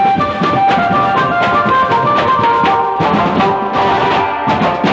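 Live procession band playing loudly: a drummer beating a steady, quick rhythm on a kit of snare-type drums and cymbals, with a melody of held notes on a lead instrument over it.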